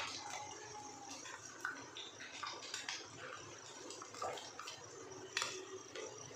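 Hot oil in a steel kadhai sizzling and crackling softly as fried boiled eggs are scooped out with a steel ladle. A few sharp clinks of the ladle on the metal come through, the loudest about five seconds in.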